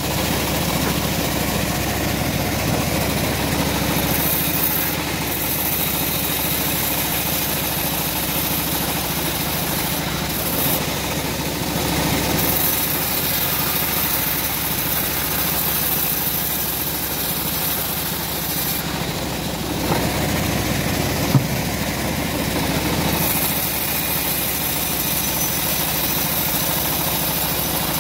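Homemade band sawmill running steadily while its blade rips a teak plank lengthwise into beam stock. A single sharp knock about three-quarters of the way through.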